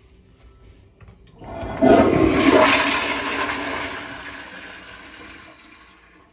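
Toto CT708 wall-hung toilet flushing through its flushometer valve. A faint click about a second in, then a rushing flush that builds quickly, is loudest at its start, and tapers away over several seconds before stopping near the end.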